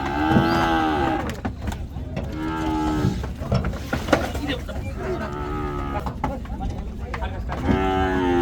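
Cattle mooing, about four long calls one after another, with a few sharp knocks in between.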